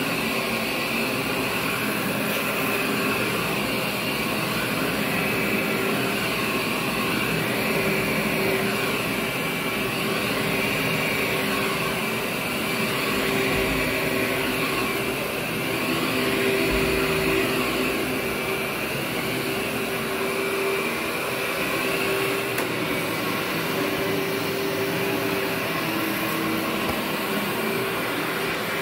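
Workhorse upright vacuum cleaner running steadily while being pushed back and forth over carpet: a constant motor whine with a lower hum that wavers slightly as the machine moves.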